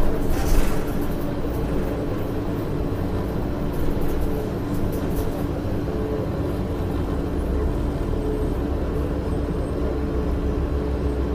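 Inside a 2006 Orion VII diesel city bus: the Cummins ISL engine and drivetrain running steadily, a low drone with a steady whine over it. A short burst of noise comes just after the start.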